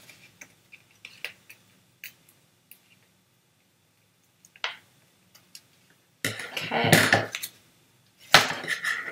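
Scissors trimming stiff brown paper-bag paper: faint small clicks and snips, one sharper snip a little after the middle, then two louder spells of paper rustling and handling near the end.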